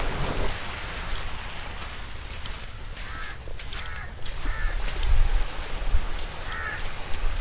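Crows cawing, several short calls spread through the middle and latter part, over a low rumble.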